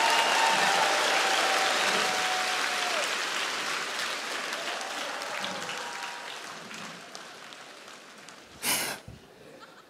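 Studio audience applauding, the clapping slowly dying away over several seconds. Near the end, one short, sharp breathy gasp.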